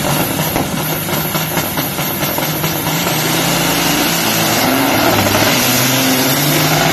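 Caterpillar diesel engines of two Peterbilt semi trucks at full throttle, launching side by side in a drag race and pulling away under load.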